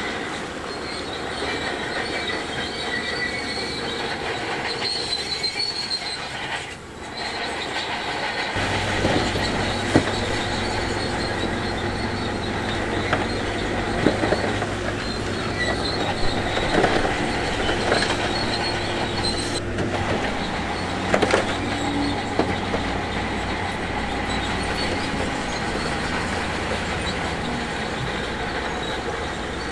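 Shantui DH17C2 crawler bulldozer at work: steel tracks squeal high-pitched and clank over a steady diesel engine hum, which grows louder about a third of the way in. Several sharp knocks of stone or metal are heard in the middle.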